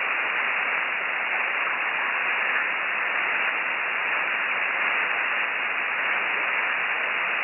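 Steady hiss of a ham radio receiver's band noise with no signal on the frequency, cut off above about 3 kHz by the single-sideband passband. It switches on abruptly at the start and holds an even level.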